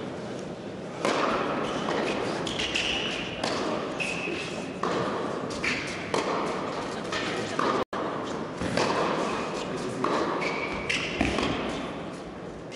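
Tennis rally on an indoor hard court: racket strikes on the ball and ball bounces, about one a second, starting with a serve about a second in. They sound through a large hall over spectators' chatter.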